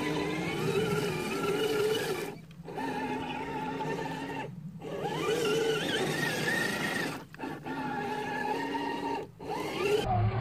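Scale RC crawler's electric motor and gear train whining as it crawls through muddy water, the pitch rising and falling with the throttle and climbing sharply about six seconds in. The whine cuts out briefly four times as the throttle is released.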